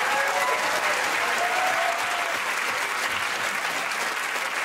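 Studio audience applauding steadily, easing off slightly toward the end.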